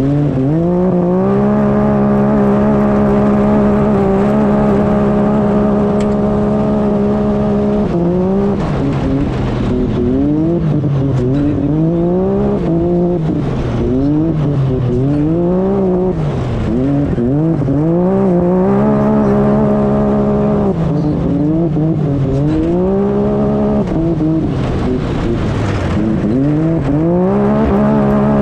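Side-by-side UTV engine heard on board, loud: held at steady high revs for several seconds, then revs rising and falling again and again through the rest of the run.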